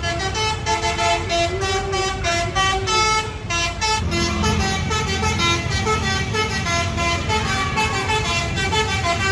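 Telolet basuri bus horn playing a continuous tune, with several horn notes sounding together and changing every fraction of a second. A bus engine rumbles underneath and grows louder about four seconds in.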